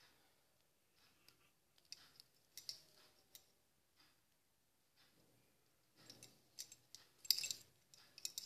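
Faint clicking and rattling of small plastic beads against a steel bowl as a needle is poked among them to pick beads up. The clicks come in scattered clusters, about two seconds in and again from about six seconds on.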